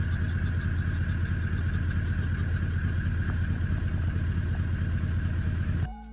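Toyota LandCruiser V8 engine running steadily with an even low drone, cutting off shortly before the end.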